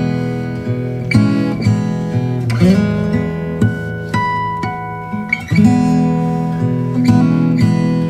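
Background music: an acoustic guitar playing plucked and strummed chords, each one ringing and fading before the next is struck.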